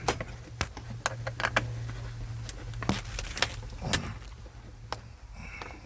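Scattered clicks, taps and scrapes of a short Phillips screwdriver working at a tight glove-box screw in a 1980s Ford F-150 dash, over a steady low hum.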